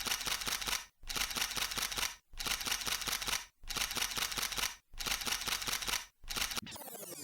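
Camera shutter clicking in rapid bursts, each burst about a second long with short pauses between, six times over. Near the end a falling synth sweep begins.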